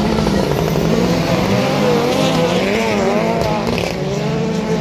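Several autocross race cars racing close together on a dirt track, their engines revving up and down as they brake, turn and accelerate through the corners.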